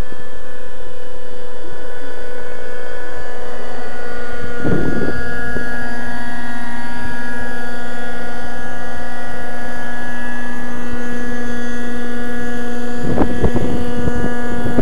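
Thunder Tiger Raptor 50 V2 model helicopter's two-stroke nitro glow engine and rotors running loudly at a steady pitch while the model flies and sets down. Two brief rushes of noise break in, about five seconds in and near the end.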